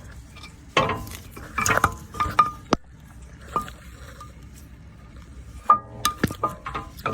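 Metal brake pads and tools clinking and clattering as they are handled: a scatter of sharp clicks, some with a short ringing note, busiest in the first three seconds and again about six seconds in.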